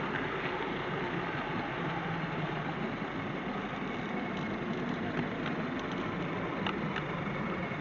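Model train running on the layout, heard through a small camera riding on a flat wagon ahead of the loco: a steady rumble of motor and wheels on the track, with a few sharp clicks in the second half.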